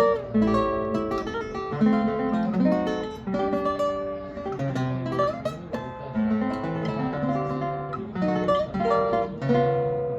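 Requinto guitar played solo: a plucked melody of changing notes mixed with quick strummed chords.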